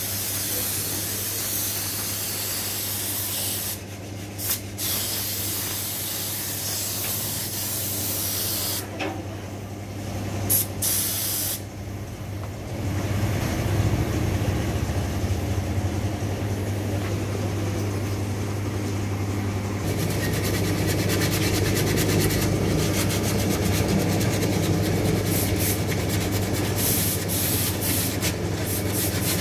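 Compressed-air paint spray gun hissing steadily over a constant motor hum. The spray cuts off briefly twice, then goes on with a rougher, rapidly fluttering texture in the last third.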